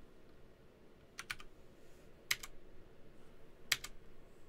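Computer keyboard keys clicking faintly in three small groups about a second apart, with quiet room tone between.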